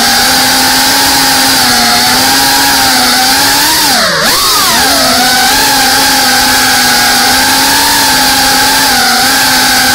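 FPV quadcopter's brushless motors and propellers whining steadily, picked up close by the camera on the drone. About four seconds in, the pitch drops sharply and climbs back.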